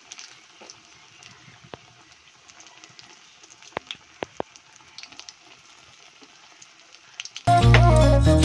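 Food frying in hot oil in a wok: a faint steady sizzle with scattered crackles and pops. Loud background music starts suddenly near the end.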